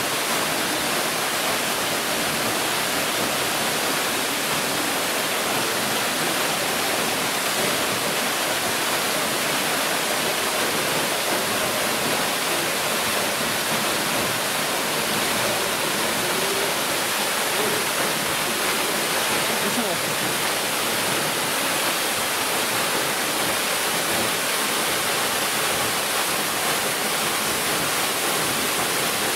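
A waterfall's falling water, making a loud, steady rush that does not change.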